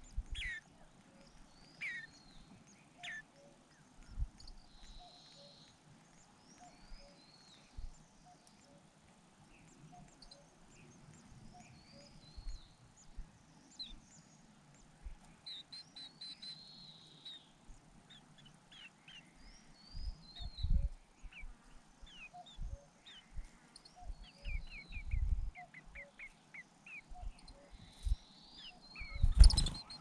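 Grey-capped greenfinches calling at the nest: a scatter of short high chirps and twittering notes, busiest in the second half. A few dull low thumps break in, the loudest near the end.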